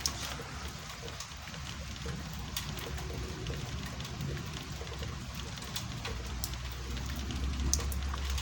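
Rain falling during a thunderstorm, a steady hiss with scattered drop ticks. A low rumble swells near the end.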